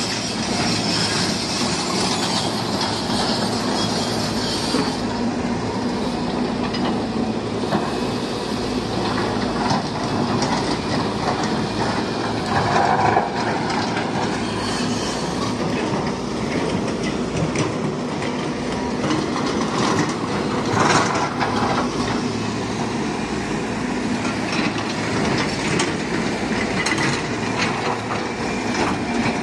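Steady rattling clatter of a mobile vibrating rock screen working through quarry stone, over the running diesel engine of a Caterpillar 320 excavator. There are a couple of louder clatters, about halfway through and about two-thirds through.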